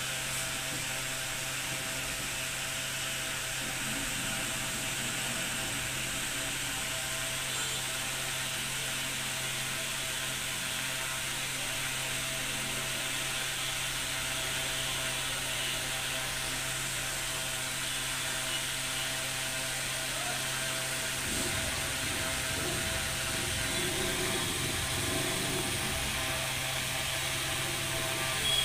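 Steady mechanical hum with a constant low drone and a faint rapid rattle, joined by some low rumbling about two-thirds of the way through.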